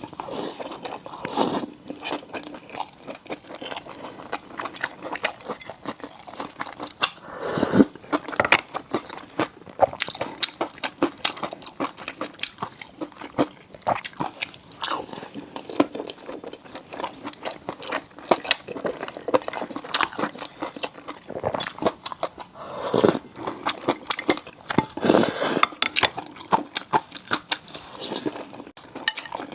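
Close-miked chewing and biting of food: a dense, irregular run of small crunchy and wet mouth clicks, with a few louder bites.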